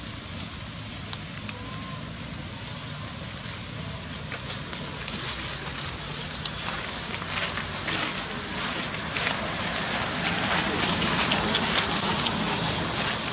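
Dry fallen leaves crackling and crunching underfoot as someone walks over forest leaf litter, the crackle growing louder and busier from about halfway through, with a couple of sharp snaps a little after six seconds. A steady high hiss lies beneath it.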